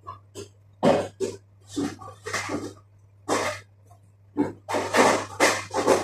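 A person coughing: about ten short coughs in irregular bunches across several seconds.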